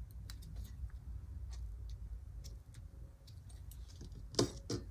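Faint scattered clicks and taps of hands handling paper stickers and planner pages, with two sharper clicks near the end.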